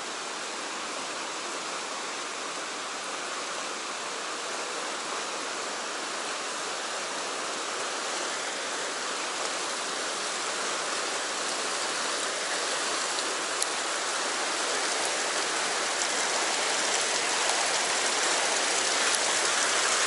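Fast river current rushing over rocks in white water, a steady hiss that grows gradually louder; one light click about two-thirds of the way through.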